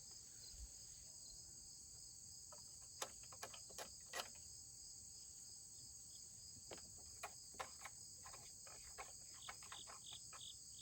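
Near silence: a steady, high-pitched insect chorus in the background, with a scattering of faint clicks and taps.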